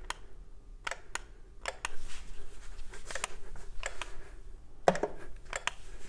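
Quinetic kinetic wireless light switch being pressed repeatedly to pair it with the master switch and toggle the light: a dozen or so sharp clicks, often in quick pairs.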